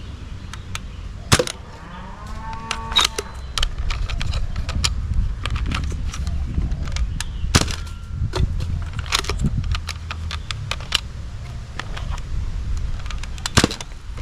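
Plastic toy guns being handled: scattered sharp clicks and knocks over a steady low rumble, with a brief warbling electronic tone about two to three seconds in.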